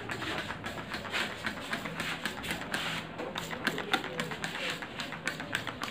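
Hands rubbing and working water into wet hair on a scalp, giving quick, irregular wet clicks and squishes.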